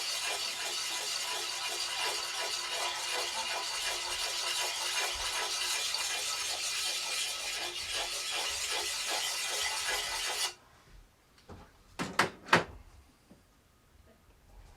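Steel edge of a double bit axe being worked by hand with a coarse abrasive, a steady rasping of quick back-and-forth strokes while the nicks are ground out. It stops suddenly about two-thirds through, and a few sharp knocks follow.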